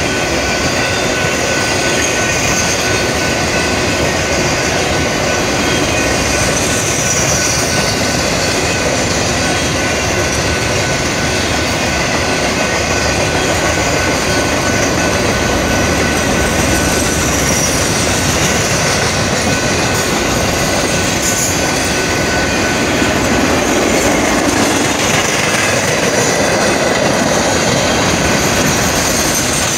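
Triple Crown RoadRailer freight train rolling steadily past, its trailers running on rail bogies: a loud, even train noise with a thin steady high tone above it.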